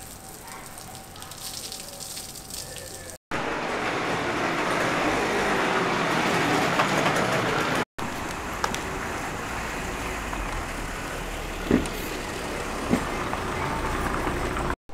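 Outdoor street ambience with traffic noise, changing at two cuts: quieter at first, then a louder stretch of even noise, then a low steady rumble with two sharp knocks about a second apart near the end.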